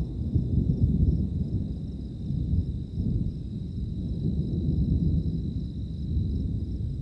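Low, uneven rumble swelling and fading, with a steady high-pitched insect trill over it.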